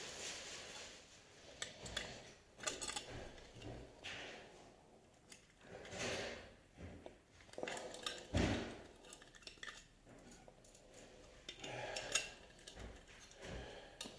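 Irregular clicks and knocks of small hard objects being handled and set down, with a louder thump about eight seconds in.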